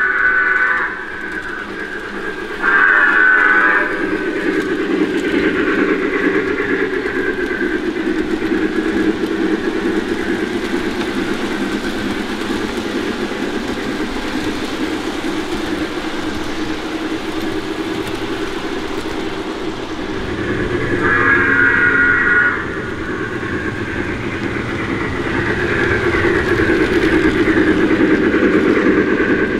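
Lionel O gauge F19 Pacific model steam locomotive running on its track, its sound system blowing three steam-whistle blasts: one ending about a second in, one around three seconds in, and one a little past the twenty-second mark.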